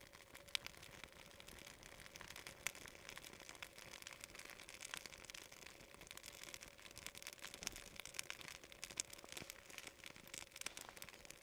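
Wood fire crackling in a small Firebox camp stove: faint, irregular snaps and pops over a soft hiss of flame, with a couple of sharper pops about half a second and nearly three seconds in.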